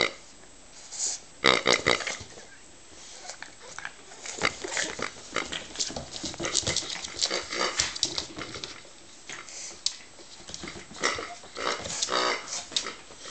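Rubber squeeze pig toy grunting twice, about a second and a half in and near the end, as a pug puppy bites and pushes it. Between the grunts the toy and the dog scuffle and knock about on a wooden floor.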